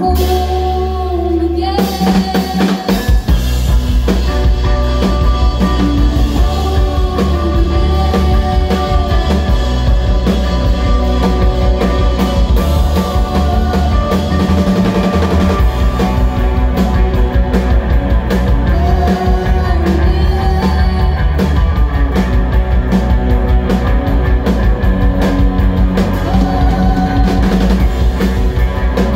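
Live rock band playing through a club PA: electric guitars over a steady electric bass line and drum kit, with the drums coming in about two seconds in.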